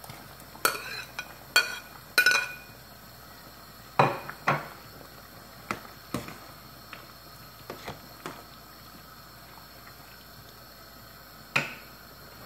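Stainless steel ladle clinking against a china plate and the rim of a steel stockpot as sliced mushrooms are scraped into the soup and stirred: three ringing clinks in the first couple of seconds, two heavier knocks about four seconds in, then scattered light taps and one more knock near the end.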